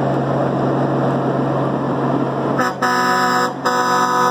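Semi truck's diesel engine running with a steady drone as the truck approaches, then its air horn blows about two and a half seconds in: a short toot and two longer blasts with brief breaks between them, the last still sounding at the end.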